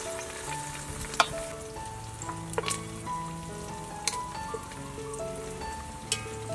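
Soft background music with a slow melody of held notes, over a steady sizzle from the pot. A few sharp clicks of a metal utensil against the pot, the loudest about a second in.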